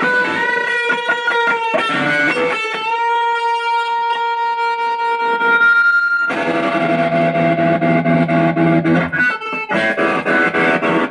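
Electric guitar played through a homemade 1-watt light-bulb MOSFET amplifier, with effects and a preamp in front, driving a speaker. Bent single notes give way to a long sustained note, then thick low chords about six seconds in, broken by a short gap before another chord near the end.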